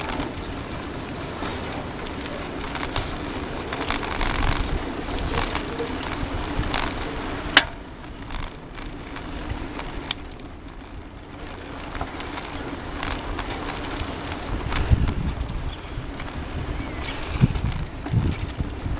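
Bicycles rolling along a paved path: tyre noise and frame rattle with wind buffeting the microphone, gusting more strongly near the end. Two sharp clicks, about two and a half seconds apart, near the middle.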